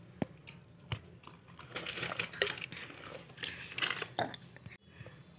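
Thin plastic water bottle crinkling as it is handled and its screw cap is taken off, with a few sharp clicks from handling early on and a crackly stretch in the middle.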